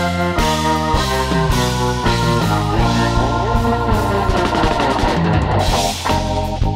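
Background rock music with a drum kit and guitar, playing steadily.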